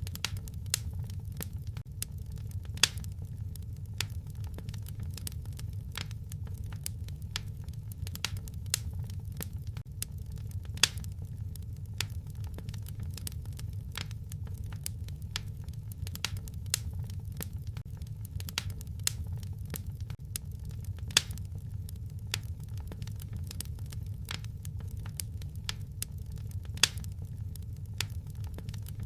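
Fire crackling in a fireplace: irregular small snaps with a few louder pops, over a steady low rumble.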